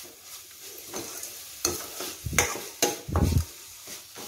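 Spatula stirring and scraping a sizzling tempering of onion, chillies and grated coconut in a stainless-steel kadai, with several loud scrapes and knocks against the pan in the second half over a faint sizzle.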